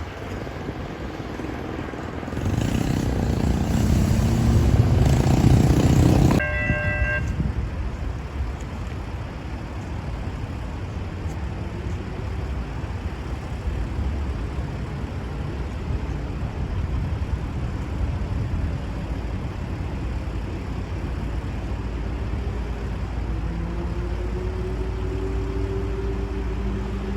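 Tri-Rail commuter train at a station. A loud rushing noise builds for a few seconds and cuts off abruptly, followed at once by a brief horn note. Then comes a steady low locomotive rumble, and a horn-like tone starts rising near the end.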